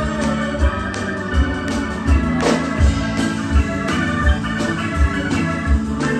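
Live music with sustained organ-toned chords played on a Roland Fantom synthesizer keyboard, over a steady bass-drum beat of roughly 80 beats a minute. A cymbal crash about two and a half seconds in.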